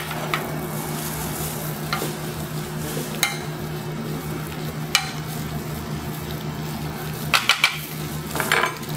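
A metal spoon tossing pasta in a metal skillet, with occasional clinks and scrapes against the pan and a cluster of sharper clinks near the end. Under it is a steady low sizzle from the pan on the lit burner.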